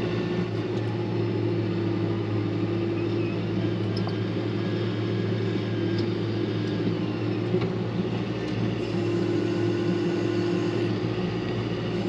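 Farm tractor engine running steadily, an even hum with no change in pace.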